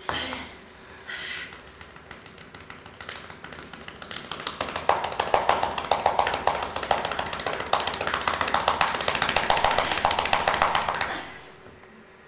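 Rapid, dense tapping: many quick clicks that start sparse about two seconds in, thicken into a loud continuous run, then fade out about eleven seconds in.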